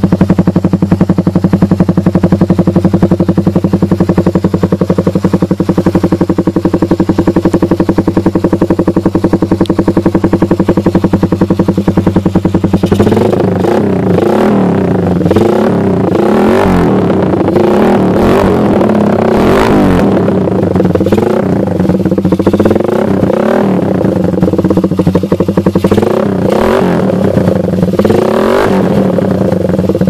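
Motorcycle engine running through an open HiSpeed Emblem V2 aftermarket exhaust, idling steadily with an even pulse. About halfway in the throttle is blipped repeatedly, the revs rising and falling, and it eases back toward idle near the end.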